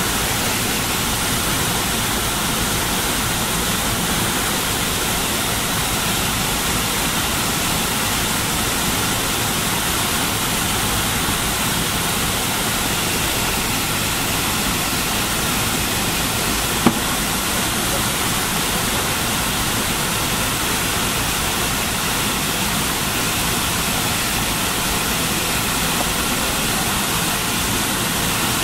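Steady cabin noise of an MD-80 airliner in descent: the even rush of air past the fuselage over the hum of its rear-mounted Pratt & Whitney JT8D engines. A single sharp click sounds a little past halfway.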